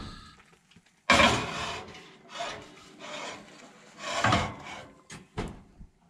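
A heavy cast-iron skillet set down and scraped across a metal oven rack as it is pushed into the oven, in several rough rubbing scrapes with a loud first one about a second in, followed by two short sharp knocks near the end.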